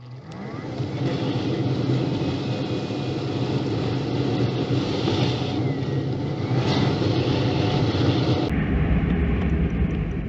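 Car running, a steady engine hum under road noise, fading in at the start with a heavier low rumble for the last couple of seconds.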